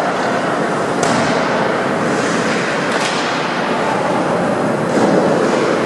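Ice hockey play: a steady rush of skates on the ice and rink noise, with two sharp cracks of stick and puck about a second and three seconds in.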